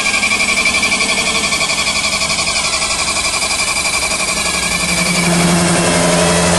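CNC metal spinning and flow forming machine running, a steady mechanical noise with a fast, even pulsing and a high whine. About five seconds in, a lower hum joins and the machine gets a little louder.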